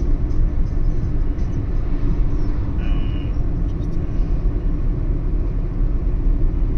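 Steady engine and tyre rumble heard inside a car's cabin while driving, with a brief high tone about three seconds in.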